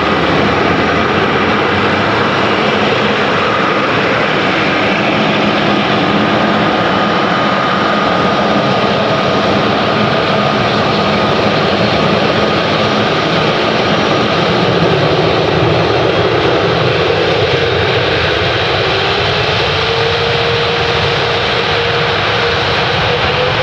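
Boeing 777 jet engines running loud and steady as the airliner rolls along the runway at the start of its takeoff, with a steady whine over the engine noise. In the last few seconds a second whine climbs steadily in pitch as the engines spool up.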